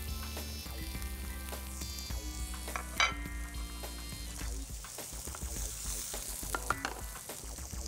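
Sea bass fillets sizzling in hot oil in a frying pan, with a sharp knock about three seconds in and a few lighter clicks near the end.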